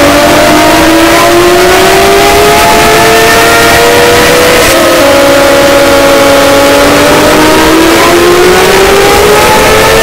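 Fan-made emergency alert (EAS) alarm, deliberately distorted to be as loud as possible. Several siren tones slowly rise and fall together over a harsh wall of noise, at full volume.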